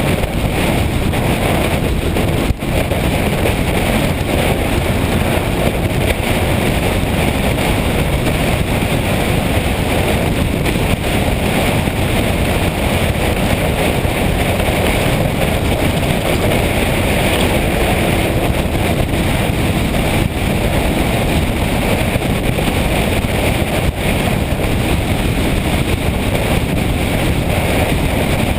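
Motorcycle riding at speed: steady engine and road noise mixed with wind buffeting the microphone, with one brief click about two and a half seconds in.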